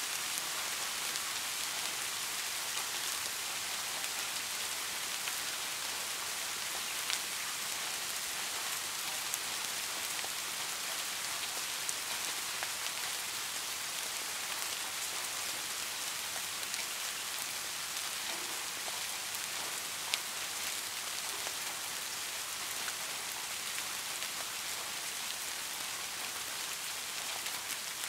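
Steady rain falling, an even hiss with a few sharper drop taps now and then.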